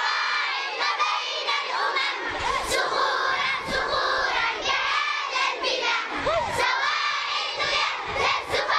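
Crowd of children shouting together, many high voices overlapping without a break.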